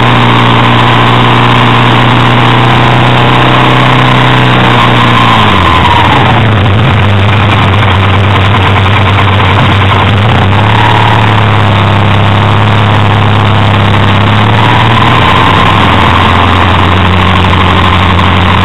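BMW R1200R's boxer twin engine running while riding, very loud and close, with heavy wind and road noise. The engine note drops about five seconds in and picks up again around ten seconds.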